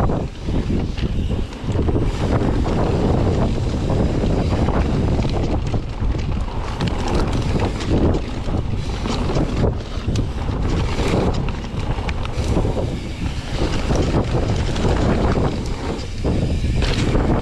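Wind rushing over the microphone of a camera on a mountain bike descending a dirt trail, with steady tyre noise on the dirt and many quick knocks and rattles from the bike over bumps.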